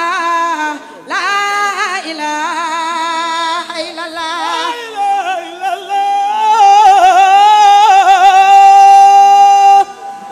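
A solo voice singing an unaccompanied Sufi devotional chant in a wavering, ornamented line, which settles about halfway through into one long, louder held note that breaks off just before the end.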